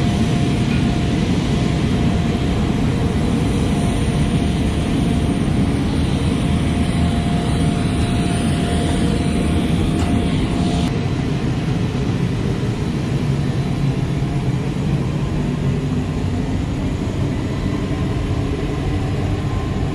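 F-16D Fighting Falcon's jet engine running steadily on the ground, a dense continuous roar with a faint whine riding on it.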